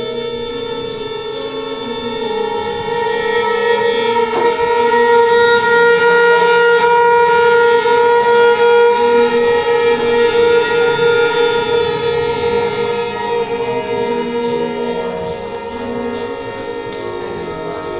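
String quartet of two violins, viola and cello playing long held notes that build into a loud sustained chord about two seconds in and ease back after about ten seconds. Short lower notes come and go underneath.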